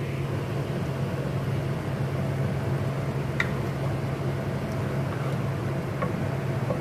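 Steady low motor hum, with a wooden spoon stirring in an aluminium pot and tapping its side lightly twice, about three and a half and six seconds in.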